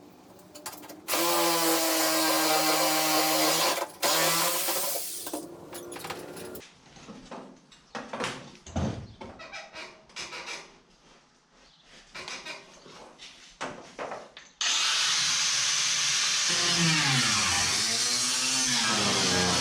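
An electric power tool, likely a drill, runs steadily for about three seconds and then briefly again. Scattered knocks and clanks of metalwork follow. From about fifteen seconds in a loud steady rushing sound with wavering pitches takes over.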